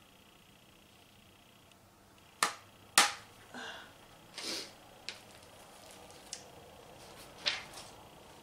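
Two sharp plastic clacks about half a second apart as a makeup palette is handled, then several short crinkles of clear plastic packaging being handled and pulled off a bubble-wrapped package.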